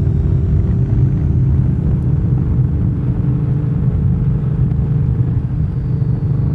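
2025 Yamaha MT-07's 689 cc parallel-twin engine running at a steady cruise, a low, even rumble with no revving up or down.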